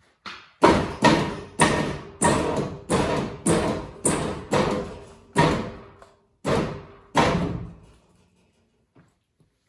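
Two-post vehicle lift worked in short presses from its control box: about a dozen sharp, loud bursts, each dying away quickly, coming every half second or so and stopping about eight seconds in.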